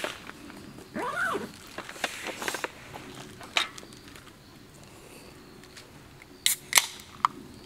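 Small clicks and knocks of handling a drink can, with two sharp clicks close together near the end. About a second in, a short call rises and falls in pitch.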